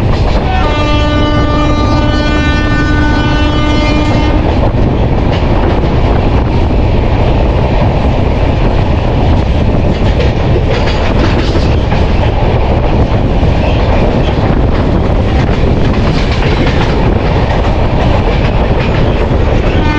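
Indian express train running at speed. The electric locomotive's horn sounds one steady blast for about three and a half seconds shortly after the start, over the loud, steady rumble and clatter of the coaches' wheels on the track, which carries on alone after the horn stops.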